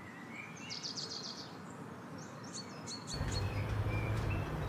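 Small birds chirping, with a quick high trill about a second in and short scattered chirps. About three seconds in, a steady low rumble of background noise comes in under the birds.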